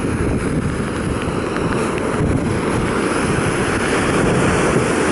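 Strong wind buffeting the microphone over the rush of large storm waves surging and breaking, growing slowly louder.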